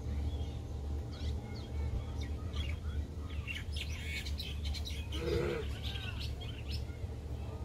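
Small birds chirping and twittering: many short, quick high calls, busiest in the middle of the stretch, over a steady low rumble.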